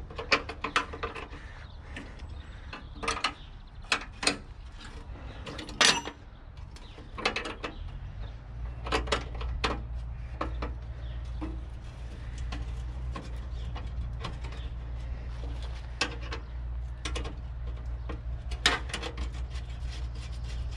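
A 13 mm spanner undoing nuts on a tractor bonnet grille: scattered sharp metal clicks and clinks. A steady low hum comes in about eight seconds in.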